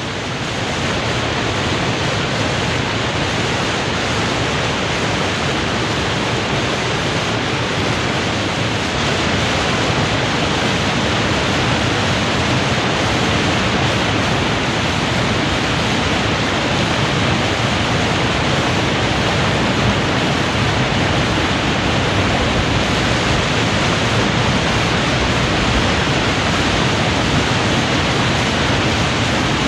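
Water pouring over a weir in full flood: a dense, steady rush of falling water.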